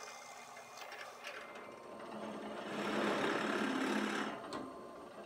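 Drill press motor running, its bit cutting a countersunk screw hole into a small wooden strip. About two seconds in, the bit bites and the cutting noise rises, stays loudest for a second or two, then eases off.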